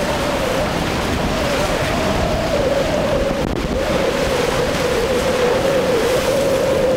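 Twin outboard motors on a center-console boat running at speed, a steady drone that wavers slightly in pitch, over the rush of the hull's spray and wake, choppy waves and wind on the microphone.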